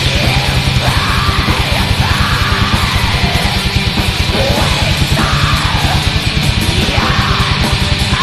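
Black metal playing: very fast drumming under a dense wall of distorted guitars, with shrieked vocals rising and falling about once a second.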